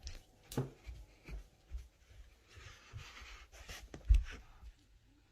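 Scratching and rustling with scattered soft knocks, and one louder thump about four seconds in.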